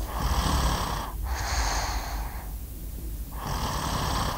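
Snoring: three slow, drawn-out snoring breaths over a low rumble, the sound of someone fast asleep.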